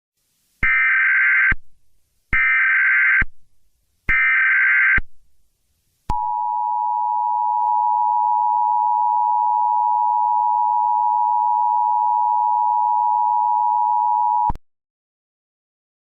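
Emergency Alert System SAME header: three short bursts of warbling data tones, each about a second long with short gaps between. Then the steady two-note EAS attention tone sounds for about eight seconds and cuts off abruptly.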